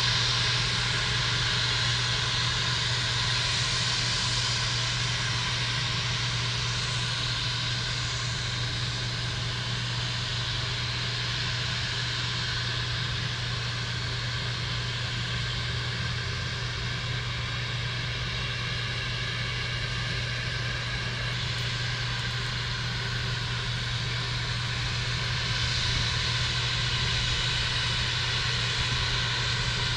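Steady jet aircraft engine noise across an airport apron: a continuous rushing hiss with faint whining tones over a low hum, growing a little louder near the end.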